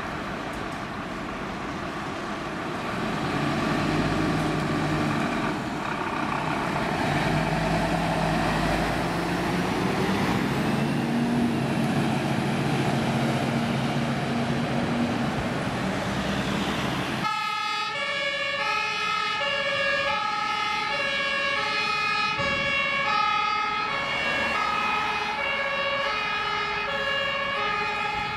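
Fire engines accelerating away on an emergency run, their diesel engines running up through the gears under heavy road noise. After a sudden cut about two-thirds of the way in, a German two-tone fire-engine siren (Martinshorn) alternates steadily between a high and a low note, about one note change every second and a half.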